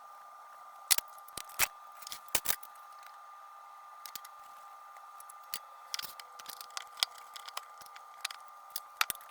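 Scattered sharp clicks and light clinks of tableware, dishes and utensils being handled and set down, loudest about a second in and again near the end. A faint steady two-tone hum runs underneath.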